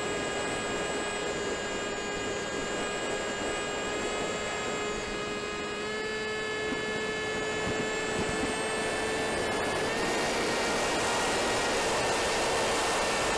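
Wing Wing Z-84 flying wing's electric pusher motor and propeller running with a steady whine, over the rush of air past the airframe, heard from the onboard camera. The pitch steps up slightly about six seconds in and again near ten seconds, after which the air rush grows louder.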